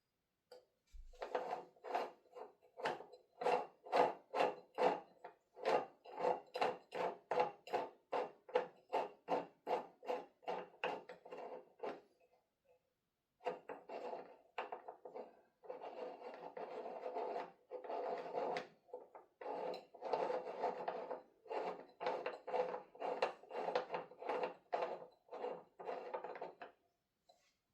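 Hand strokes of something rough rubbing back and forth on wood, about two a second, with a short pause about halfway through.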